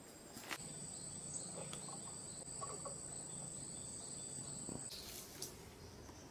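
Insect trilling, most likely a cricket: a steady high-pitched buzz that starts abruptly about half a second in and cuts off just before the five-second mark. It is followed by a few crackles of footsteps in dry undergrowth.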